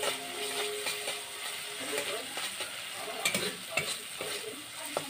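Metal spatula stirring and scraping spiced onion-tomato masala around a metal karahi, the masala sizzling in oil; a few sharper scrapes against the pan come between about three and five seconds in.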